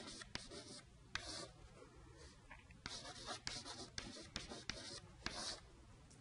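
Chalk writing on a chalkboard: faint scratchy strokes and small taps of the chalk, coming in short spurts with pauses as words are written and underlined.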